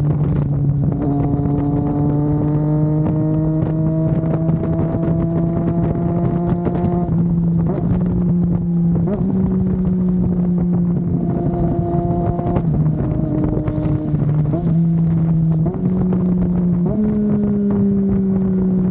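Triumph Daytona 660's three-cylinder engine running at steady cruising revs while riding, its pitch rising slowly and then stepping up several times, with wind rushing over the microphone.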